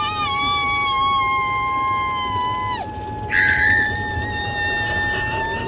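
Two children's voices hold long, high, steady wordless notes that overlap. One note sags slightly and stops about three seconds in. The other holds on, and a breathier high note joins it just after.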